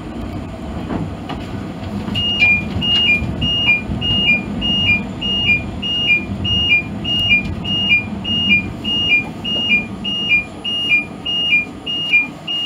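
Cab of Blackpool Balloon tram 707 running, with a steady low rumble. About two seconds in, a high two-note electronic beep starts, a higher note dropping to a lower one, repeating about every half second or so.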